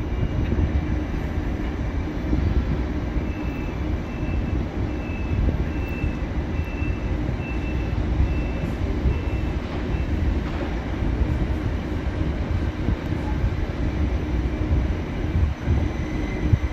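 Red-and-white electric multiple-unit train running past on a far track: a steady low rumble, with a faint high-pitched tone pulsing about one and a half times a second for several seconds in the middle.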